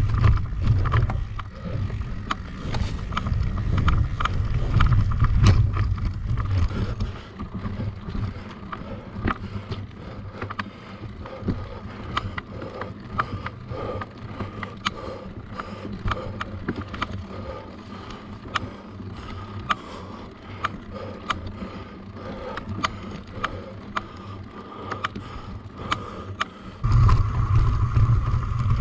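Mountain bike being ridden in a cross-country race: low wind and riding rumble on the camera microphone mixed with the rattle and clicking of the bike over the ground. The rumble drops away after about seven seconds, leaving mostly sharp clicks and rattles, and comes back loud near the end.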